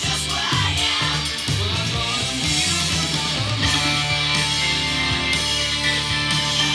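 A rock song with guitar played from a CD through a pair of Panasonic SB-550 stereo speakers at a loud, steady level.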